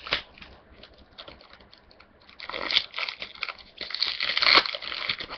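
Foil booster-pack wrapper being torn open and crinkled by hand. A sharp click at the start and a few light ticks give way, about two seconds in, to dense crinkling and tearing that grows louder toward the end.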